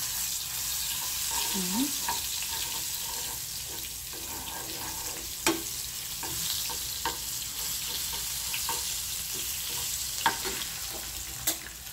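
Chopped garlic sizzling in a little oil in a small nonstick frying pan, stirred with a metal spoon that clicks against the pan now and then.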